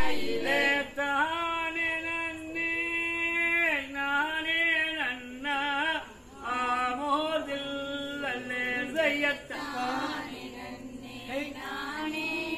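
Unaccompanied singing of a Valli Kummi folk song: a single lead voice holds long notes and moves through a rising and falling melody, phrase after phrase.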